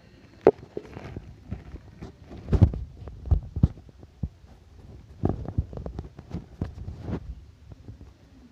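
Handling noise as a packaged motorcycle headlamp unit is unpacked and turned over: irregular knocks, taps and light rubbing, with a few sharper bumps about half a second in and around three and five seconds in.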